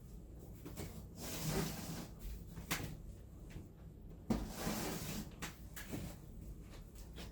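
Handling noise as a graphics card is picked up and moved about. There are two spells of scraping rustle, the second starting with a sharp knock about four seconds in, and a few light clicks.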